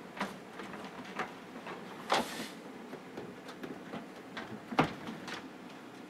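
Steady low hum of a running desktop PC's case fans, with scattered clicks and knocks: a short rustle about two seconds in and a sharp knock near the end.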